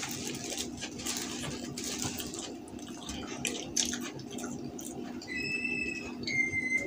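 Close-miked eating: a burger being chewed and its paper wrapper crinkling, over a faint steady hum. Near the end come two short high whistling tones, the second a little lower.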